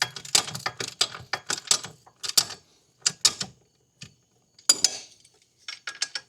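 A hand ratchet wrench clicking in short irregular runs as 14 mm axle-clamp bolts are run down to snug.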